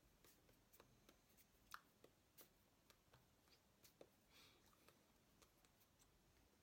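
Near silence: quiet room tone with faint, scattered soft clicks and brief rustles.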